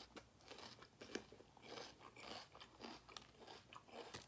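A person chewing and smacking on a mouthful of food coated in spicy seafood-boil sauce, close to the microphone: faint, irregular small clicks and smacks.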